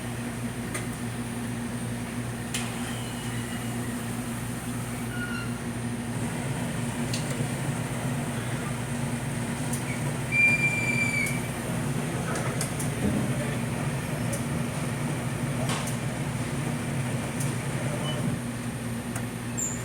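Convenience-store beverage machine running with a steady low hum, dispensing hot water, with a few light clicks and a short high beep about halfway through.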